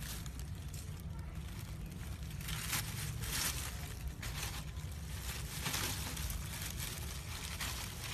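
Dry leaf litter crackling and rustling in irregular bursts as a Hispaniolan solenodon roots through it with its snout, over a low steady rumble.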